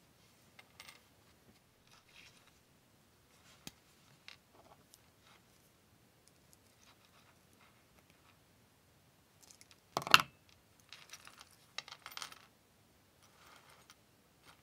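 Small metal chain links and jump rings clinking and clicking lightly as they are handled, with one sharper, louder clink about ten seconds in.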